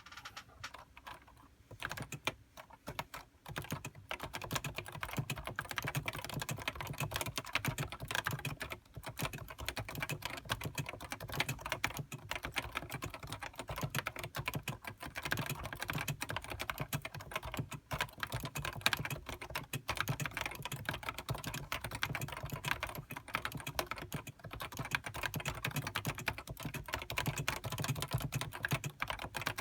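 Continuous fast typing on a Topre Realforce HiPro keyboard, whose electrostatic capacitive rubber-dome switches give a dense run of keystrokes. A few scattered key presses come first, and the steady typing gets going about two seconds in.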